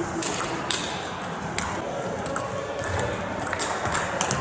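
Table tennis ball clicking off bats and the table during a rally: sharp ticks at irregular intervals over the steady background hum of a large hall.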